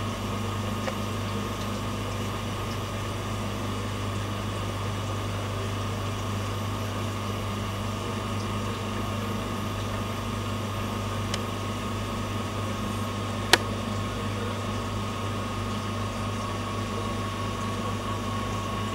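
Steady hum of aquarium pump equipment, with one loud sharp snap about two-thirds of the way through and a couple of fainter clicks. The snap is typical of a pistol shrimp snapping its claw.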